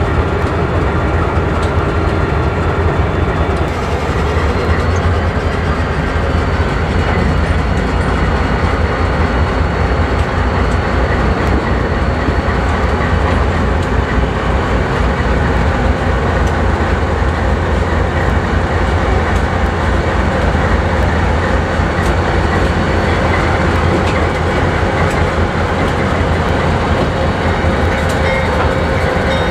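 A lashup of freight diesel locomotives, a Norfolk Southern wide-cab unit followed by Pan Am Railways units, rolling slowly past. Their engines make a steady deep rumble, with some clicking of wheels over the rails.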